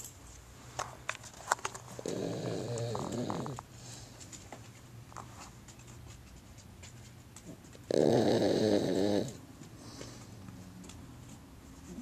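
Cavalier King Charles Spaniel snoring in his sleep: two snores, one about two seconds in and a louder one about eight seconds in, each lasting about a second and a half.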